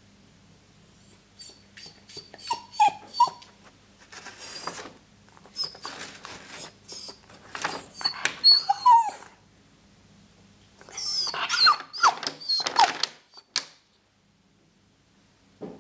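Puppy whimpering in short high whines while rustling and crinkling a paper bag of cleaning cloths. The whines and rustling come in bursts, with a short lull partway through, and stop near the end.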